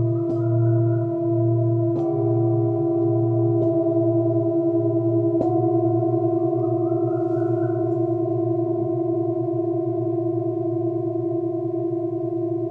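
Old Tibetan singing bowls struck one after another with felt mallets, four strikes in the first five or so seconds, each adding its own tone. After that no more strikes: the bowls ring on together with a slow pulsing beat in the deepest tone, slowly dying away.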